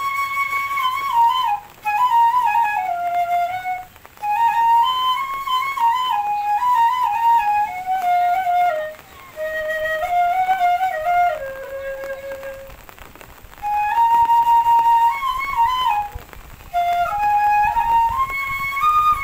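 Background music: a solo flute melody played in phrases of a few seconds, with short pauses between them.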